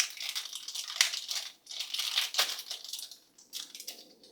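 A small plastic surprise bag being crinkled and torn open by hand: irregular crackling that dies away near the end.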